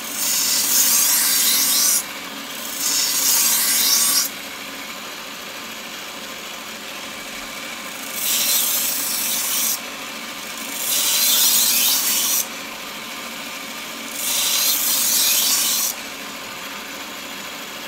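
A 1x30 belt grinder runs steadily while a dull, chipped kitchen knife's edge is pressed to the belt against the platen in five grinding passes of about two seconds each, each a loud abrasive hiss over the motor's hum. The edge is being ground to take out its chips and correct the bevel.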